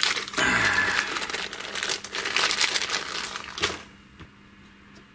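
Crinkling and rustling of packaging as new mono jack sockets are handled, stopping suddenly about four seconds in.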